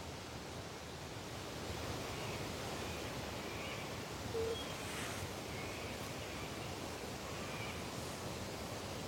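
Steady rushing outdoor noise with a few faint, high bird chirps scattered through it, and one short low tone about halfway.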